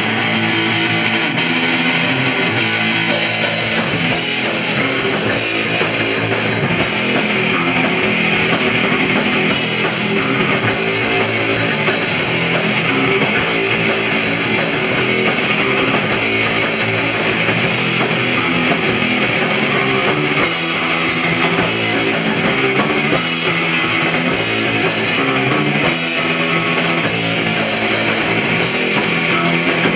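Live rock band with electric guitar, bass guitar and drum kit, in an unmixed live recording. An electric guitar plays alone at first, then about three seconds in the drums with cymbals and the bass come in, and the band plays on loud and steady.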